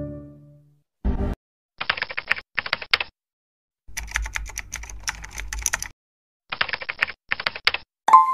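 Keyboard typing sound effect: several bursts of rapid key clicks separated by short silences, with a short electronic blip near the end. The tail of a deep musical sting fades out in the first half second.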